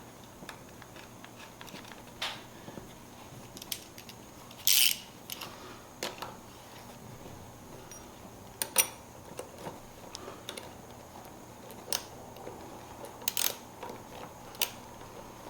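Scattered small metallic clicks and clinks of hardware being handled: a bolt, washer and lock nut being fitted on a seat backrest bracket and hand tools picked up, with one longer rattle about five seconds in.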